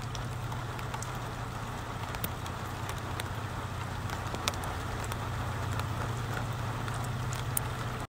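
Steady rush of rain and muddy floodwater running across a flooded paved path, with a few sharp ticks of drops and a steady low hum underneath.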